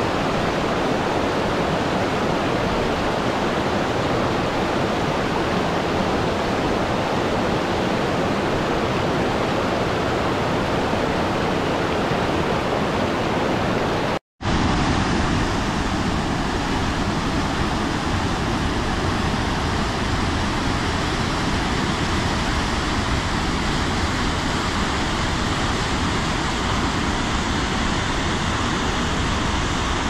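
Steady rush of a waterfall cascading down a rocky mountain gorge. A little under halfway through, the sound drops out for a split second and resumes as a slightly duller rush of water.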